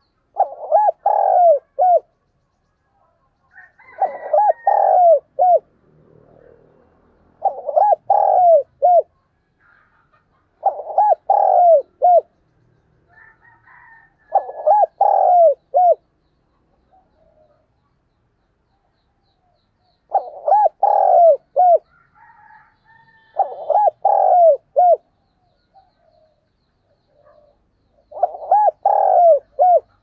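Spotted dove used as a decoy, cooing: eight phrases of several throaty coos each, each ending in a short clipped note, with pauses of a few seconds between. This is the dove's calling song, used to lure wild doves.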